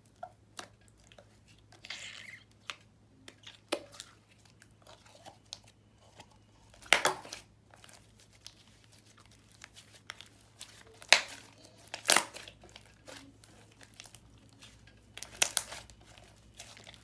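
Thick, creamy butter-clay slime being stretched, folded and pressed by hand, giving irregular sticky clicks, crackles and pops. The louder pops come about seven seconds in, around eleven and twelve seconds, and near the end.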